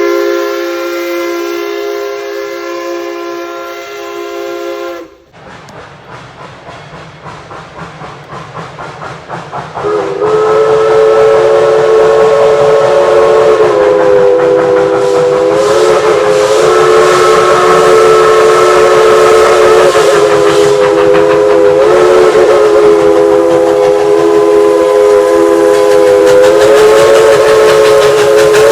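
Steam locomotive whistle sounding a chord of several notes, which cuts off about five seconds in. Exhaust chuffs follow and quicken. About ten seconds in the whistle blows again and is held long over the chuffing, its pitch wavering slightly.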